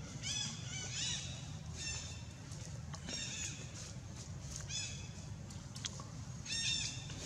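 Infant long-tailed macaque giving short, high-pitched squeaky calls, a quick few near the start and then one every second or two, over a steady low rumble.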